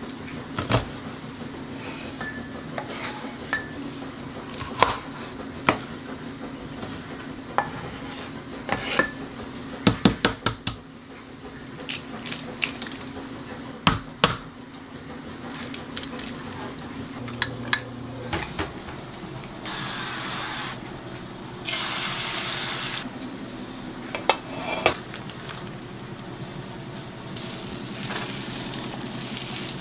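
Kitchen prep sounds: a knife chopping red bell pepper on a small wooden cutting board in sharp knocks, eggs being cracked, and a spatula working an omelet in a frying pan on an electric stove. Two short stretches of hiss come a little past the middle, over a low steady hum that drops out about halfway through.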